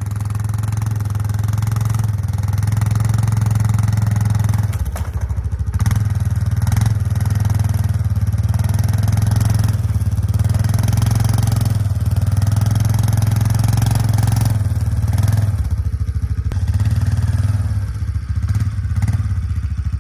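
Four-wheeler (ATV) engine running steadily at low speed as the quad is driven slowly into position, its note shifting a couple of times.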